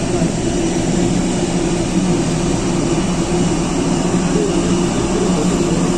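Jet airliner engines running: a loud, steady hum and rush with no change in pitch or level.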